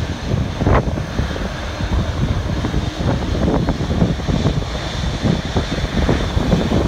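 Wind buffeting the microphone over the low rumble of a twin-engine widebody airliner's jet engines as it sits on the runway.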